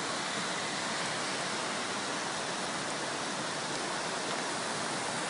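Steady, even rush of water with no breaks or distinct events.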